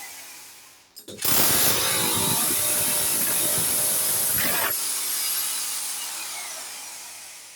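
A power tool running in one long burst. It starts about a second in, slowly fades, and stops just before the end.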